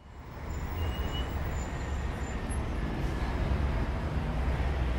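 Outdoor city ambience: a steady low rumble of traffic under an even hiss, fading in at the start.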